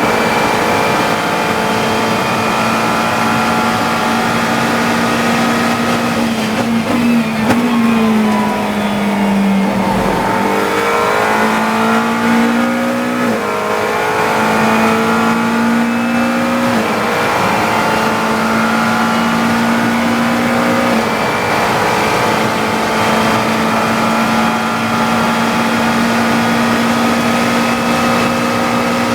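GT3 race car engine at racing speed, heard from inside the cockpit, holding high revs. About six seconds in it slows through a series of downshifts for a corner, then accelerates again with upshifts about 13, 17 and 21 seconds in.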